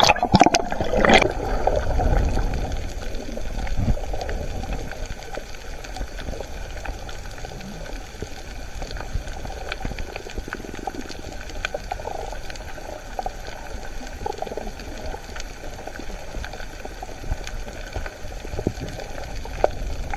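Muffled underwater sound picked up by an action camera held under the sea: splashing in the first second as it goes under, then a steady low rush with scattered faint clicks.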